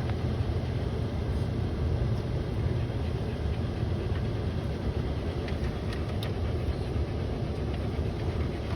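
A long train rolling past a grade crossing, a steady low rumble with faint clicks from the cars over the rails.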